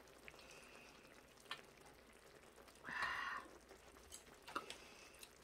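Quiet table sounds while eating: a few light clicks of chopsticks against dishes, and a short rushing noise about three seconds in that is the loudest sound.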